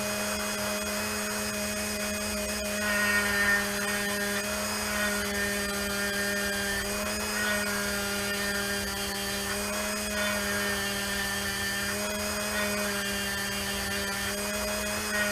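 Small electric power tool running steadily, doing the fine pass on carved grooves in a wooden walking stick. It gives a constant high whine whose pitch wavers slightly now and then.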